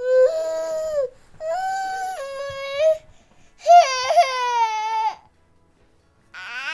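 Infant crying in a string of wails, each about a second long with short gaps for breath between them: three cries, then a fourth starting near the end.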